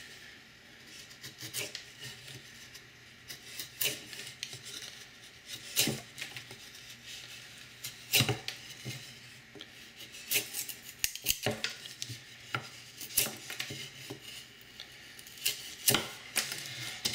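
Maxamet-steel knife blade whittling a pine stick: a string of separate sharp cuts and scrapes as shavings come off, one every second or two, coming quicker after about ten seconds.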